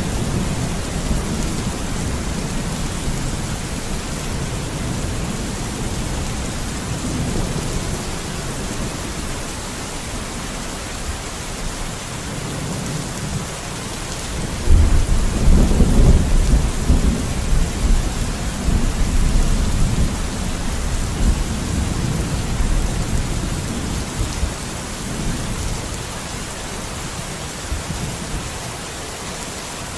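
Steady rain with rolling thunder; a low rumble rises suddenly about halfway through, then dies away slowly over the following seconds.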